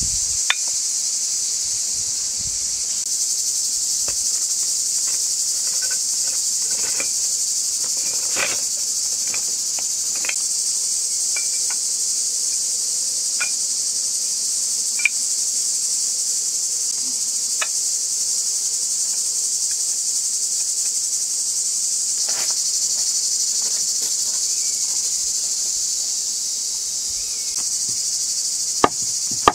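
Steady high-pitched chorus of insects, with scattered light knocks as hollow bricks are set down on gravel. Near the end, a cleaver chops on a wooden board.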